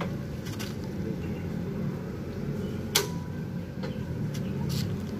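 Steady low machinery hum with scattered light clicks and one sharp click about three seconds in.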